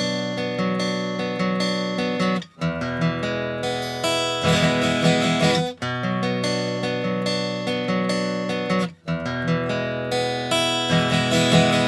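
Background music of strummed acoustic guitar, with brief breaks roughly every three seconds.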